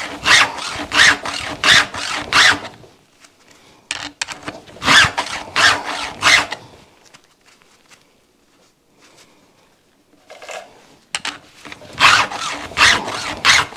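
Worn-out files in a Stihl 2-in-1 chain sharpener rasping across the cutters of a chainsaw chain in quick back-and-forth strokes, about three a second, in three runs with pauses between. The files are worn smooth, so they slide easily over the cutters with a high-pitched scrape instead of biting.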